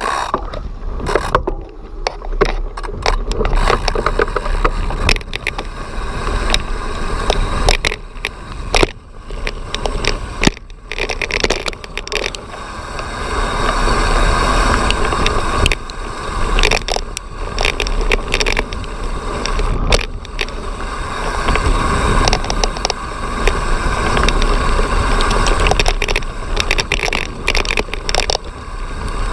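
Mountain bike rolling fast over a rough dirt trail, heard from a camera on the bike or rider: a steady rumble of knobby tyres and wind on the microphone, broken by frequent knocks and rattles as the bike hits bumps.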